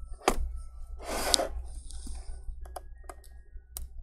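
Gloved hands handling a laptop's display panel: a sharp click, a brief rustle about a second in, then several light clicks, over a steady low hum.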